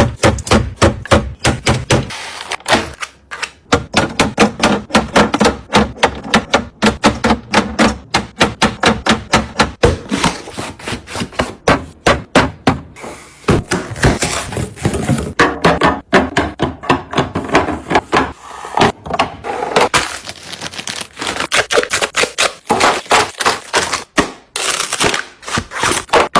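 Rapid, uneven clicking and clattering of small hard items being handled and set down, several sharp taps a second.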